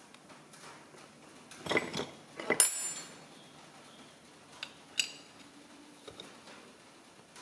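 Metal tools and small pump parts clinking and knocking on a metal workbench: a few clinks about two seconds in, the loudest just after, then a few lighter ticks around five and six seconds in.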